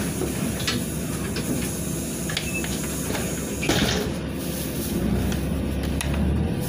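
Cabin noise inside a LiAZ 5292 city bus: the engine running under a steady hiss, with the body and fittings clicking and rattling and one louder knock about four seconds in. From about five seconds the engine hum grows deeper and louder, with a faint rising note near the end.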